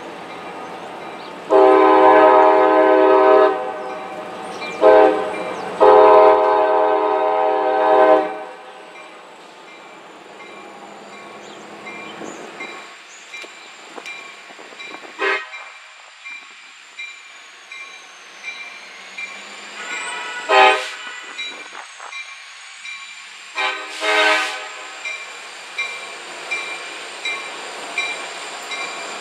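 Diesel freight locomotive's multi-chime air horn sounding a long blast, a short one and another long one in the first eight seconds, then one brief blast about twenty-four seconds in. Between the blasts the train rumbles slowly along street track, with a few sharp knocks and, near the end, wheels clacking about once a second.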